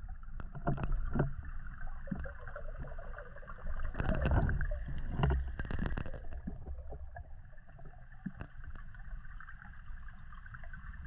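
Underwater sound of a freediver swimming with a camera mounted on a speargun: a steady low rumble of water moving past the housing, with irregular clicks and swishes, busiest between about four and six seconds in.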